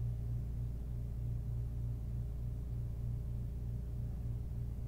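A steady low hum with a slight regular pulsing in it.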